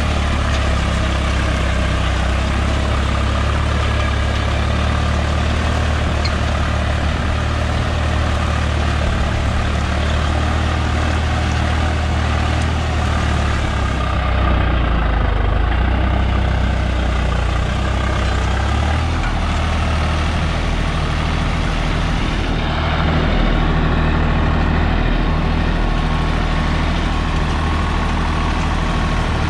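Swaraj 744 FE tractor's three-cylinder diesel engine running steadily under load as it pulls a seven-tine cultivator through dry soil.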